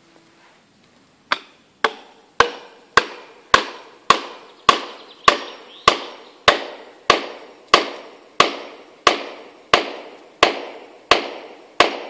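Steady hammering: about eighteen evenly spaced blows starting a second in, each a sharp knock with a short ringing tail, slowing slightly toward the end.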